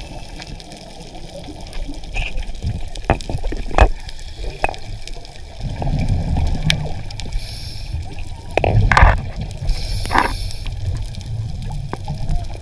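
Underwater sound picked up by a diver's camera: a low rumble with gurgling water and bubbles, broken by scattered sharp clicks and knocks.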